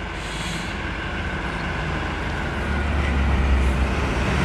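A box truck approaching along the road, its engine rumble growing steadily louder as it nears.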